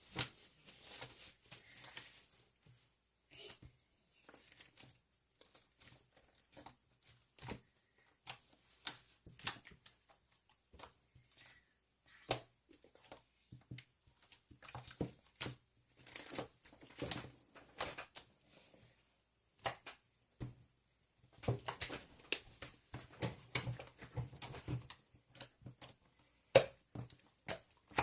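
Irregular small clicks, taps and short rustles, bunched in clusters with gaps between.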